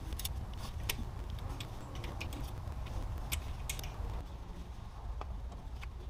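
Irregular metallic clicks and clinks from a socket wrench and engine parts being handled, over a steady low rumble.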